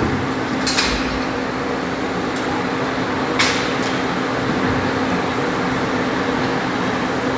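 Steady fan-like whirring with a constant low hum, broken by two sharp knocks from the workout over the plyo box and barbell, one about a second in and a louder one about three and a half seconds in.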